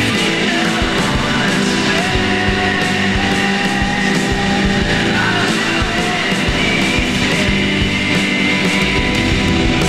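Shoegaze noise-rock song playing: a dense, steady wall of fuzz-distorted guitars over drums.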